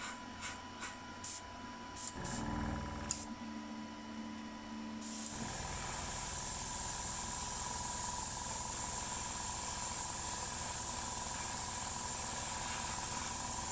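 A few clicks as the airbrush compressor's pressure regulator knob is turned down from full pressure, then a brief low hum of the compressor motor. From about five seconds in, a steady hiss of air from the airbrush as it sprays red paint.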